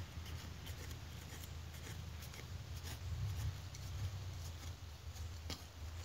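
Rubber-gloved hand scraping and scooping loose sandy soil: a run of small scratches and clicks, with a sharper click about five and a half seconds in.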